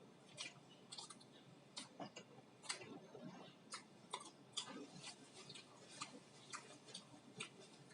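Faint, irregular wet clicks and smacks of someone chewing noodles, about one or two a second.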